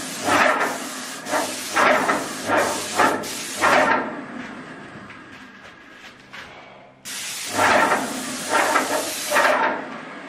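Airless paint sprayer gun spraying skirting-board woodwork: a loud hiss of atomised paint that rises and falls in pulses. It stops about four seconds in, starts again about seven seconds in for a second pass, and stops shortly before the end.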